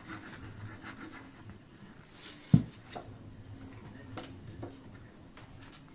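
Quiet handling of paper and craft tools on a table, with light rubbing and small ticks, and one loud knock on the table about two and a half seconds in.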